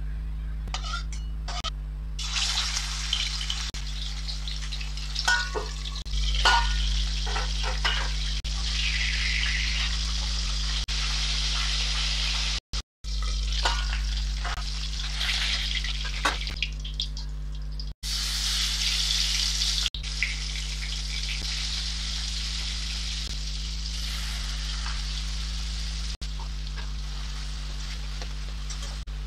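Food frying in hot oil in a wok: a steady sizzle, first with pieces of rui (rohu) fish, later with tomatoes and a mustard-poppy paste being stirred with a spatula. A steady low hum runs underneath, and the sizzle drops out briefly a few times where the clips change.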